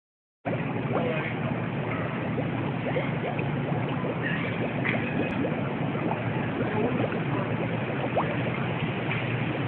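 A steady wash of moving floodwater with a vehicle running through it, sloshing and splashing, starting about half a second in.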